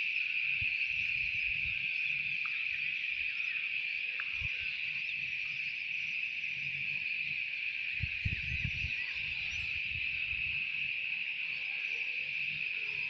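A steady, unbroken chorus of insects shrilling on one high pitch. There is some low rumbling underneath, strongest about eight seconds in.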